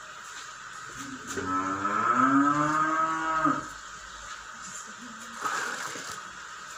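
A cow mooing: one long call of about two seconds, starting a little over a second in, rising in pitch and then holding.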